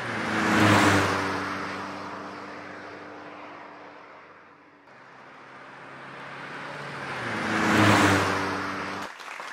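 Car driving past twice: a swell of engine hum and road noise that peaks about a second in and fades away, then builds again to a second peak near the end. It cuts off suddenly just before the end.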